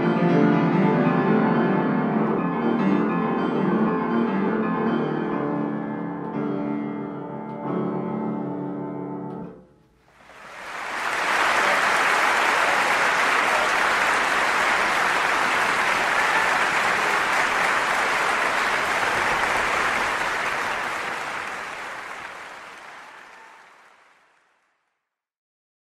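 Piano playing the last bars of a piece, which ends about nine seconds in. Applause follows, steady for about ten seconds before fading out to silence.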